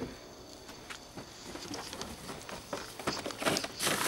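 Irregular rustling and light knocks of things being handled and shifted inside a car's trunk, sparse at first and busier in the last second or so.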